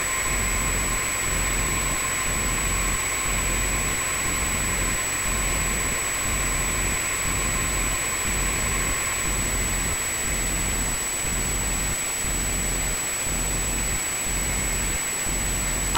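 Small crawler bulldozer's engine running steadily, under a steady hiss.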